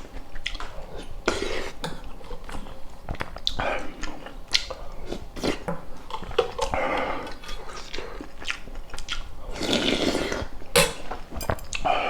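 Close-miked eating sounds: chewing and biting with wet mouth noises and many small clicks, with a longer wet, noisy stretch a little before the end.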